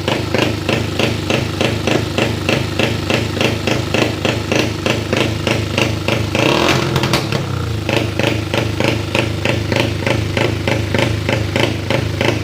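Honda Wave 110's single-cylinder four-stroke engine, running through a loud custom exhaust, on a deliberately choppy 'hitting' idle set by the tuned API ECU. It fires in uneven thumps about four times a second, briefly smoothing out about halfway through.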